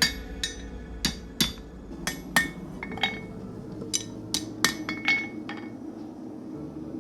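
Blacksmith's hammer striking a 3/8-inch steel bar on an anvil, forging a tent-stake scroll: about a dozen irregular blows with a bright metallic ring, stopping about five and a half seconds in. A steady low hum runs underneath.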